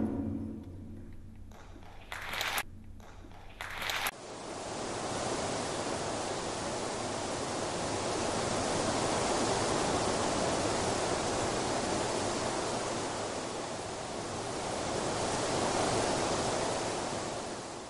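Music fading out, a few short clicks, then from about four seconds in the steady rush of a waterfall, swelling and easing slightly before fading out near the end.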